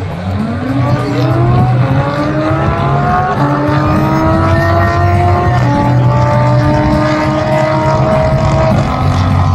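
High-performance car accelerating hard, its engine pitch climbing and stepping through several upshifts.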